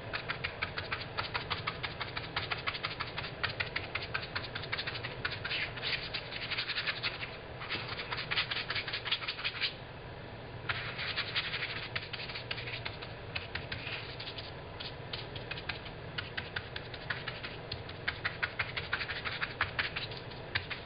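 Paintbrush dabbing and scrubbing paint onto fabric laid on a hard counter: quick scratchy taps in bursts, with a pause of about a second near the middle.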